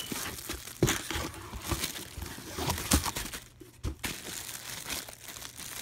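Clear plastic wrapping around a handbag crinkling and rustling as it is handled, with a couple of sharper crackles about a second in and about three seconds in.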